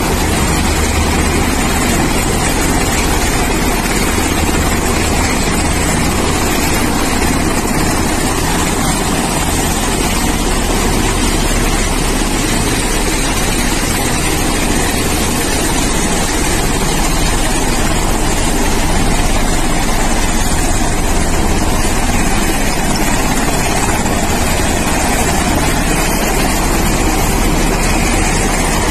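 Presidential helicopters on the ground, their turbine engines running with a loud, steady noise and a low hum.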